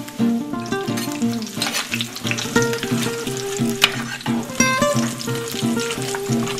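Hot oil sizzling as pieces of dried salted beef (cecina) fry in a clay cazuela, with a silicone spatula stirring and scraping them through the second half. Background music with a plucked melody plays over it.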